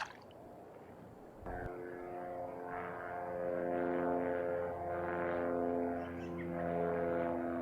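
Propeller airplane flying over: a steady engine drone that comes in about a second and a half in and slowly swells and eases.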